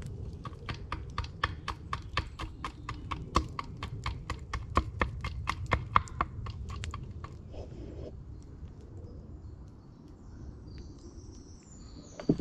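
Quick, even wooden knocks, about four a second, of a blade striking wood held on a chopping stump; they stop about seven seconds in.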